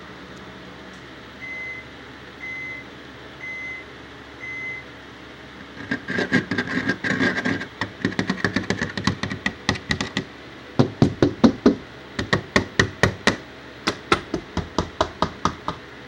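Four short high electronic beeps about a second apart, then from about six seconds in a long run of rapid, sharp clicks and crunching taps, several a second, louder than the beeps.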